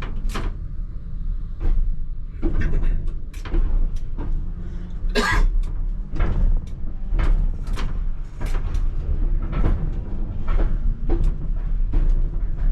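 ČKD Tatra T3R tram running, heard from inside: a steady low rumble with irregular knocks and clacks from the wheels and body going over the track.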